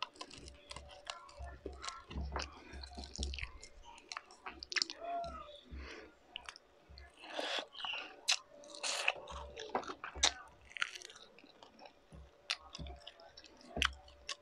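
A person chewing and eating with many short, sharp wet clicks and smacks of the mouth.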